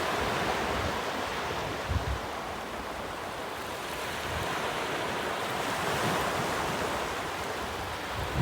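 Sea surf washing onto the shore: a steady rushing that swells and eases. A brief low buffet of wind on the microphone comes about two seconds in.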